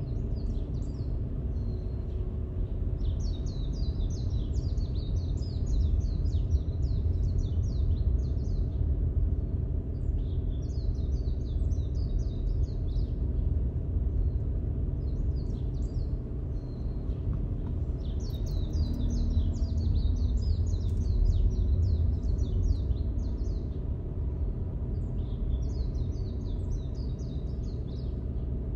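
Steady low rumble of a car creeping along in slow traffic, heard from inside the car. Birds chirp over it in five bursts of a few seconds each.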